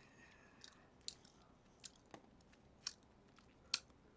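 Faint, scattered small clicks, about six in four seconds.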